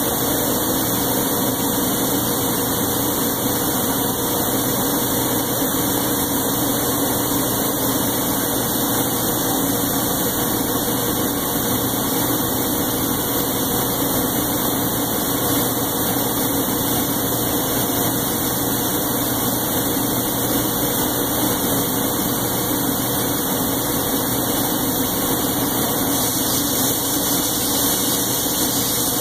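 A steady mechanical drone with a low hum and a few faint steady tones, unchanging throughout: a motor or machine running.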